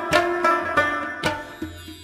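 Rabab instrumental music: quick plucked string notes over a drum accompaniment, thinning out near the end.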